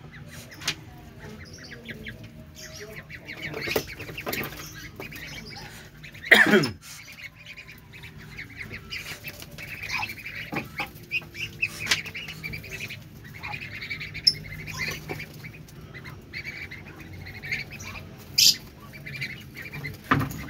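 Young ducks quacking and calling in short bursts while feeding, with many small taps and clicks. The loudest moment, about six seconds in, is a single sound that slides down sharply in pitch.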